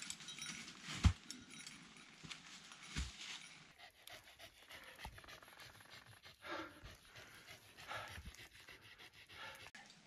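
A sheltie panting, with a few sharp knocks of steps on the rocks and leaves in the first few seconds.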